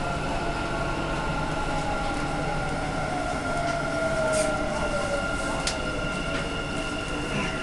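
Dubai Metro train heard from inside the car as it slows into a station: a whine from the electric drive falls slowly in pitch over a steady rumble and hum of the running train. A couple of brief clicks sound about halfway through.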